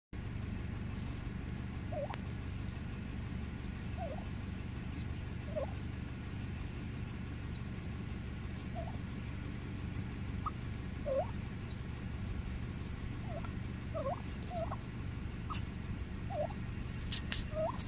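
Wild turkeys giving short trilling calls, about a dozen scattered a second or two apart, over a steady low background rumble. A few sharp clicks come near the end.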